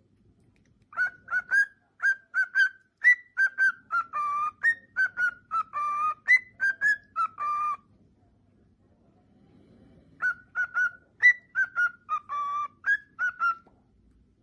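Male cockatiel singing its whistled song in two phrases of short, clear whistled notes. Some notes are held longer and bend in pitch. There is a pause of about two seconds between the phrases.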